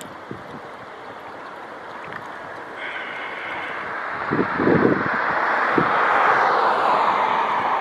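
Wind buffeting the microphone in a few low gusts, under a rushing noise that swells over several seconds and eases near the end.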